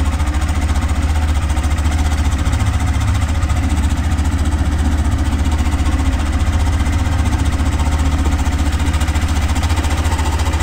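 Hero motorcycle's single-cylinder engine running steadily after a cold start, making a harsh, abnormal racket that appears only when the engine is fully cold. The noise persists even after the cam and rocker were replaced.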